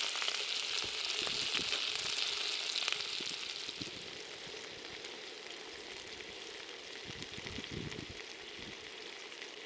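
King prawns and garlic frying in oil in a cast iron pan over a campfire: a steady sizzle that grows fainter about four seconds in.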